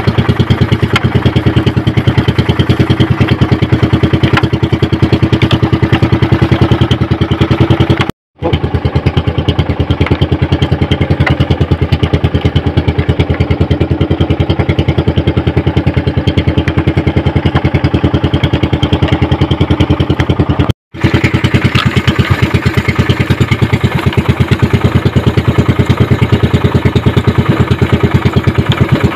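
Engine of a motorized outrigger fishing boat running steadily under way, a loud, fast, even chugging. It drops out abruptly for a moment twice.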